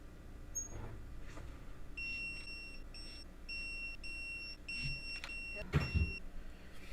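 Digital torque wrench beeping, a string of about seven high beeps starting about two seconds in, signalling that the 33 ft-lb setting is reached on the head-stud nuts. A few knocks and clicks from the wrench working the nuts come before and among the beeps.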